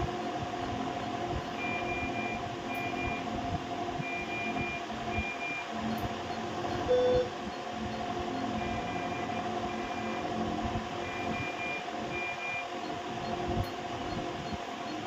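Short, high electronic beeps repeating in groups of two to four over a steady hum, with one louder, lower beep about seven seconds in.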